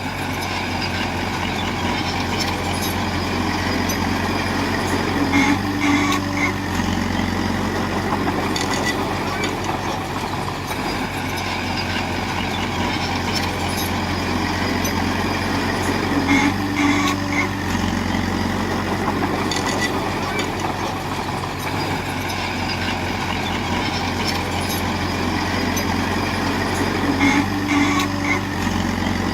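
Heavy diesel engine of a Komatsu bulldozer running steadily as it works. About every eleven seconds, three times in all, the engine note changes and a short higher tone sounds.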